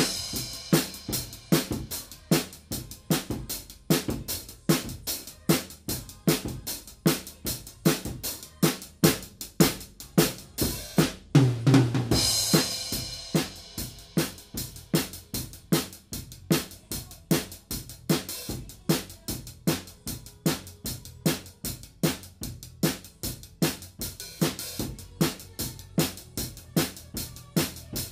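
Drum kit with Soultone cymbals played with sticks in a steady beat of about two strokes a second, snare and bass drum with hi-hat and cymbals. About 11 seconds in, a crash cymbal rings out together with a bass drum hit.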